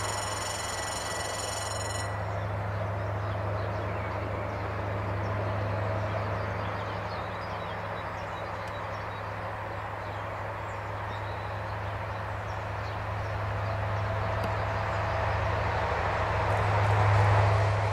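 SNCF CC 72000-series diesel locomotive hauling a passenger train, its engine drone growing louder as it approaches and loudest near the end. Birds chirp faintly in the background.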